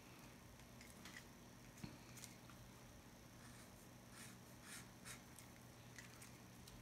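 Faint scratching of a pen drawing on tracing paper: a handful of short, quick strokes, over a low steady room hum.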